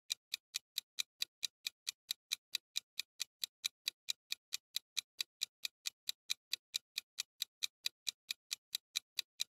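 Clock-ticking sound effect for a quiz countdown timer: fast, even ticks, about four to five a second, steady throughout.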